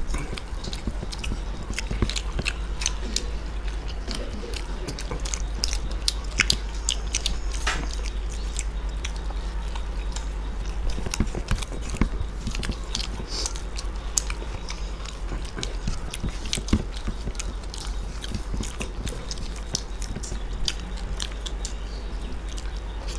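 Close-miked chewing and biting of two people eating chilli chicken momos in gravy with their fingers: many small, sharp mouth clicks scattered irregularly, over a steady low hum.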